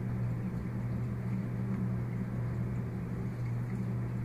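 Steady low hum over a constant background rush, with no change in level or pitch.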